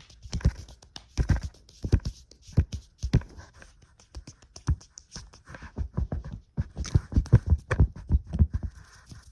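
Fast, aggressive ASMR triggers close to a microphone: rapid, irregular taps and dull thumps, with scratchy rubbing between them.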